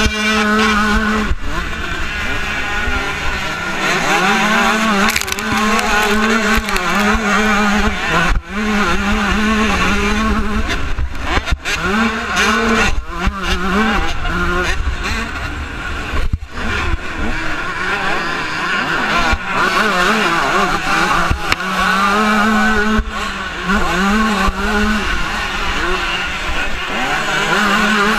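125cc two-stroke motocross bike's engine, revving hard and dropping off again and again as the rider shifts gears and rolls off for turns and jumps, heard loud and close from the rider's helmet.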